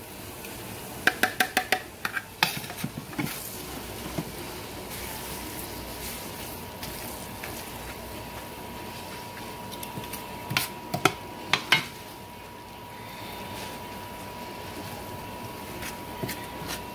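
Ground pumpkin-seed mixture frying and sizzling steadily in hot fat in a pot. A spoon stirring it knocks and scrapes against the pot in a few short clusters: early on, around the middle, and near the end.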